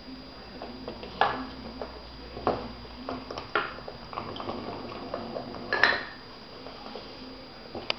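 Plastic caps on a wooden dog puzzle board clattering and knocking as a French bulldog noses and tips them over, in a string of irregular knocks with the loudest about six seconds in.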